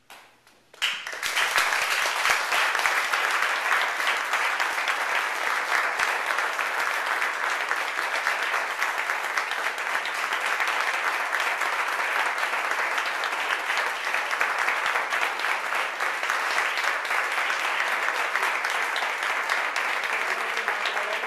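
Applause from a crowd of many people clapping, breaking out suddenly about a second in and holding steady and dense.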